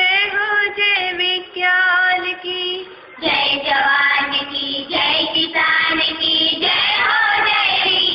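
A Hindi poem sung to a set melody by a high voice, the pitch gliding between held notes. There is a short pause just after three seconds, then the singing goes on.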